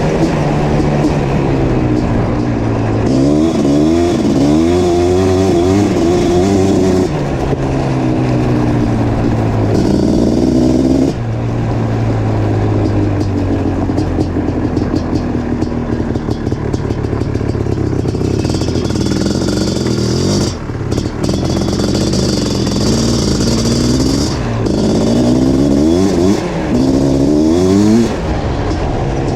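1987 Suzuki LT500R Quadzilla's 500cc liquid-cooled two-stroke single, on FMF exhaust, being ridden hard: its pitch climbs again and again as it accelerates through the revs. In the middle it holds a steadier note that slowly drops before climbing again.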